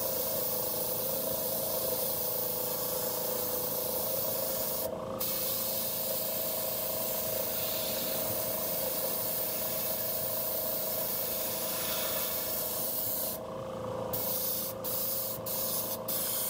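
Gravity-feed airbrush spraying thinned acrylic paint: a steady hiss of air and paint. It breaks off briefly about five seconds in, and near the end it comes in short spurts as the trigger is released and pressed again.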